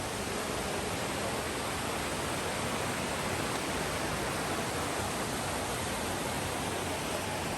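Steady rush of flowing water from a mountain river or waterfall, an even hiss and roar with no breaks.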